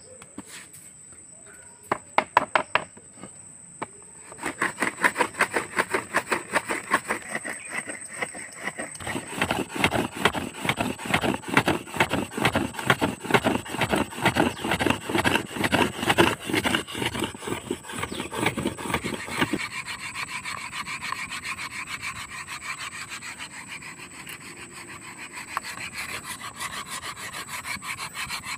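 Wood rubbed rapidly back and forth across another piece of wood, a fast rasping stroke after stroke, with a few sharp knocks before the rubbing starts about four seconds in. The strokes are heaviest at first and turn lighter and higher-pitched later on.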